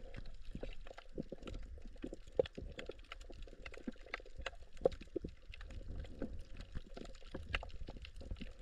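Underwater sound on a shallow coral reef: irregular sharp crackling clicks over a steady low water rumble.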